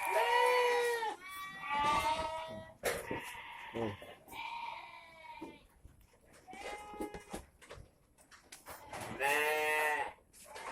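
Goats bleating repeatedly, a string of quavering calls of different pitches, loudest right at the start and again near the end.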